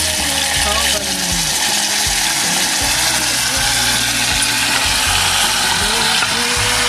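Chopped tomato, onion and green pepper sizzling in hot oil in a steel pot as they are scraped in from a plate with a wooden spoon: a steady frying hiss.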